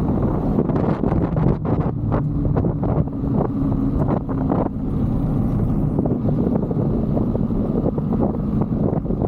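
A 125cc Brixton motorbike's single-cylinder engine running while riding, with heavy wind buffeting the microphone. Short knocks and rattles come through the first half, then the sound evens out.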